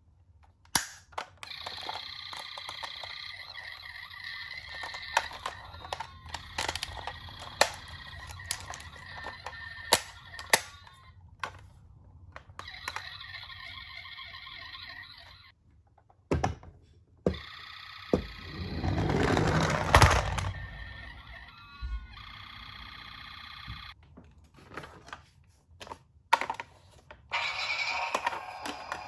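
Toy ambulance's electronic siren sounding in stretches of a few seconds with short gaps between, over many sharp clicks and knocks. A louder rushing noise comes about two-thirds of the way in.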